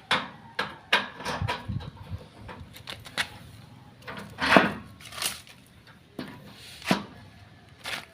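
A string of irregular knocks and clunks, some with a short ring, the loudest about four and a half seconds in; no saw or engine is running.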